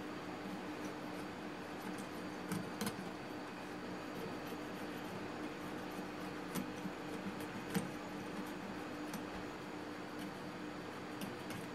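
Kitchen knife scraping the hard, scute-like ridge off the side of a smooth flutemouth, giving a few sharp ticks scattered through over a steady low hum.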